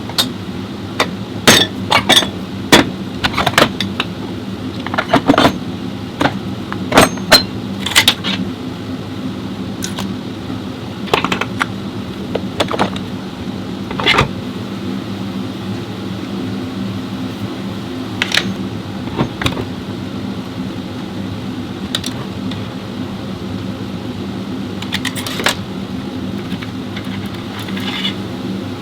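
Sharp metallic clinks and clanks, most of them in the first half, over a steady low mechanical hum.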